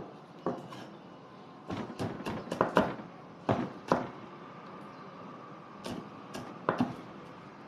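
A knife slicing red chilies on a wooden cutting board: irregular sharp taps of the blade striking the board, a quick run of them about two seconds in and a few more scattered after.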